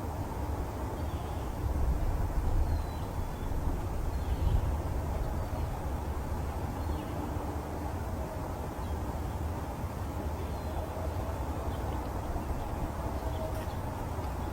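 Steady low outdoor rumble, swelling briefly about two and four and a half seconds in, with a few faint, short small-bird chirps scattered through it.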